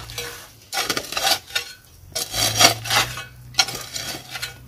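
Metal hoe blade chopping and scraping into dry red soil, three strokes about a second and a half apart, digging the soil away from an elephant foot yam tuber.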